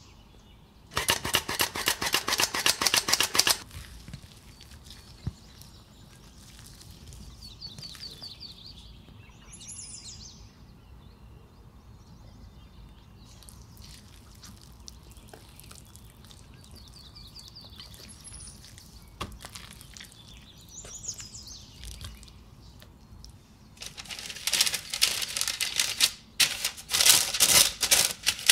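Squeeze-handle flour sifter clicking rapidly for a couple of seconds as flour is sifted into a bowl. Then comes faint scraping of a whisk in thick pancake batter, with a few bird chirps behind it. Near the end, parchment paper crinkles loudly as it is pressed into a baking tray.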